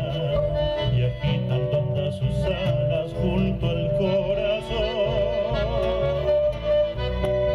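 Live chamamé ensemble playing an instrumental passage: violins carry the melody with a wide vibrato, at times two lines in harmony, over strummed acoustic guitars and a pulsing bass.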